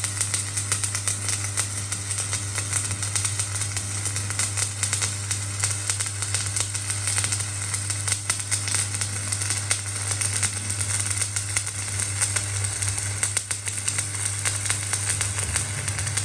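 Electric welding arc crackling and sizzling steadily over a low steady hum, then cutting off suddenly at the end as the arc is broken.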